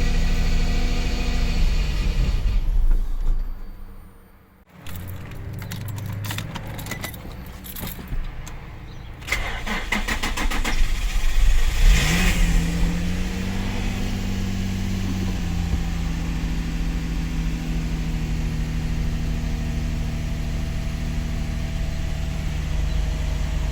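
Infiniti G35's 3.5-litre VQ35 V6 running, cutting out a few seconds in, then being cranked for several seconds before it catches with a rise in revs and settles into a steady idle. The long crank and poor idle are typical of the failing camshaft position sensor the owner traces it to.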